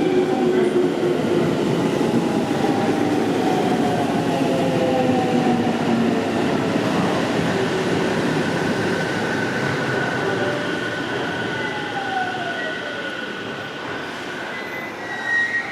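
JR Central 313 series electric train slowing as it runs into the station. Wheels and running gear rumble steadily and gradually fade, motor whines glide down in pitch, and a high brake squeal holds through the later half. A short louder burst comes just before the end.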